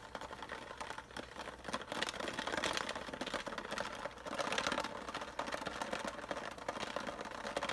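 Small metal ball bearings rattling and sloshing in a plastic bottle of alcohol as it is shaken, a fast clattering that swells in waves, to wash crud out of the worn bearings.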